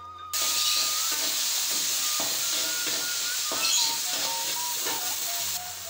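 Frying in a wok: a loud, steady sizzle of hot oil that starts suddenly just after the beginning and drops away near the end.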